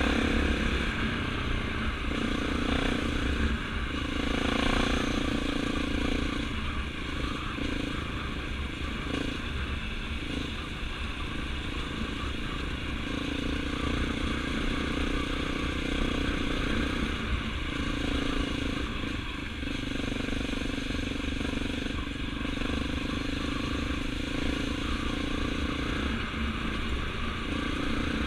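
Honda CRF250L's single-cylinder four-stroke engine running while riding at cruising speed, its note easing off and picking up again a few times with the throttle, over steady wind rumble on the onboard microphone.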